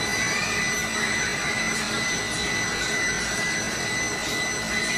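Small handheld electric massager running, a steady motor whir with a thin high whine over it.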